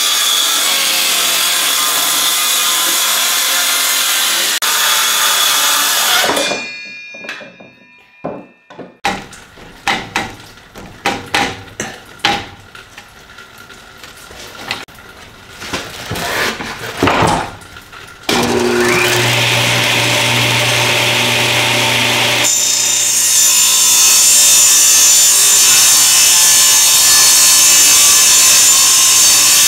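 A handheld power saw cuts through a white-faced board for several seconds, then winds down. A stretch of knocks and handling noise follows. A belt-driven table saw then starts up with a steady hum, and about four seconds later it cuts loudly as a plywood panel is fed through it.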